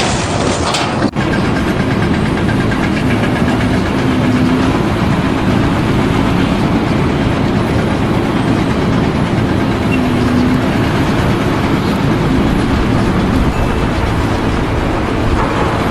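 A large engine running steadily, with dense mechanical noise and no let-up, broken briefly about a second in.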